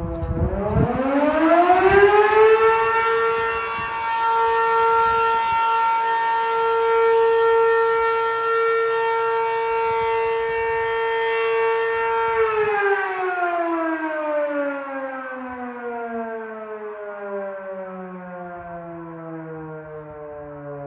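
Firehouse siren sounding for a medical call: it winds up in pitch over the first couple of seconds, holds one steady loud tone for about ten seconds, then winds slowly down in pitch.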